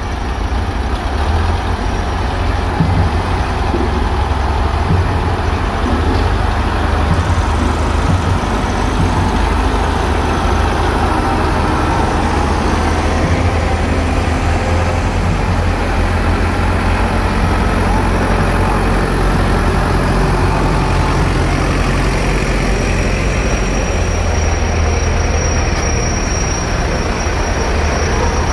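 Diesel engines of New Holland farm tractors running at low speed as they drive slowly past, a steady, loud, low engine sound.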